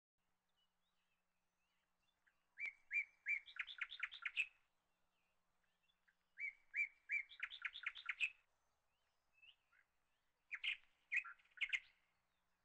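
A songbird singing three short phrases a few seconds apart, each a few separate notes followed by a quick run of notes.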